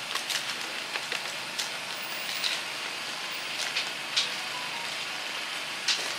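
Metal ladle clicking and scraping against a plastic tub and thin plastic takeaway containers as saucy food is spooned in, eight or so short sharp clicks at uneven intervals. Under it runs a steady outdoor hiss.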